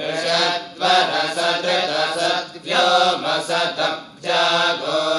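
A group of men chanting Vedic Sanskrit hymns to Agni together, held on a few close pitches with small steps up and down. It is in measured phrases, with short breaks about two and a half and four seconds in.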